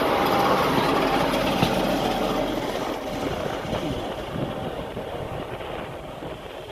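Small narrow-gauge diesel locomotive running past close by on the adjacent track, then moving away, its engine and wheels fading steadily, with a few clicks from the wheels on the rails.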